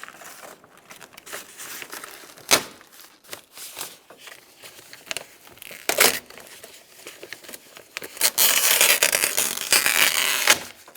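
Plastic vapor barrier being peeled off a truck door's inner metal panel, crinkling and tearing away from the adhesive that holds it. There are two sharp snaps, then a longer, louder rip near the end.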